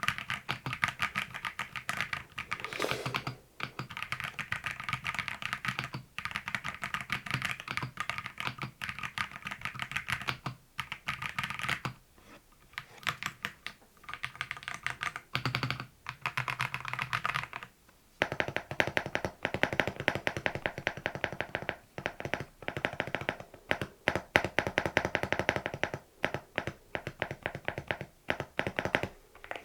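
Fast typing on a mechanical keyboard: dense, rapid key clacks with short pauses. The character of the clacks changes about 18 seconds in.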